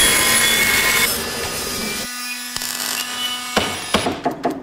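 Toothed saw blade cutting through metal, a dense rasp with thin high ringing tones, which drops away about two seconds in to a quieter low steady hum. Near the end, a quick run of rhythmic scraping strokes, about six a second, as a hand tool works along a metal strip.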